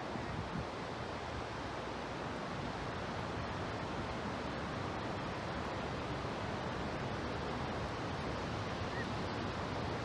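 Steady, even rush of swollen floodwater in a river.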